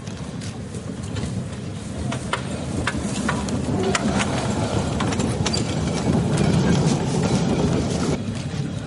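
Horse-drawn narrow-gauge rail wagon passing close by: hoof clops and sharp clicks over a rumble of iron wheels on the rails, growing louder as it goes past. It is loudest about six to seven seconds in and drops off near the end.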